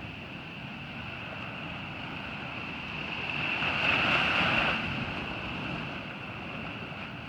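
Ocean surf on a beach: a steady wash of breaking waves, one of which swells up and falls away about four seconds in.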